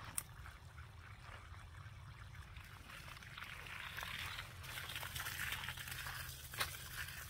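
Water running from a garden hose onto soil and bean plants, a splashing trickle that grows louder about halfway through. Two sharp clicks, one right at the start and one near the end.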